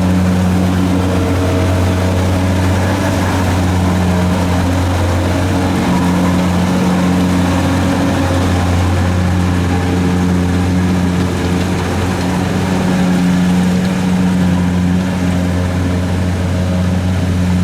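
Diesel engine of a Kubota DC-70 rice combine harvester running steadily, a constant low hum with machinery noise over it.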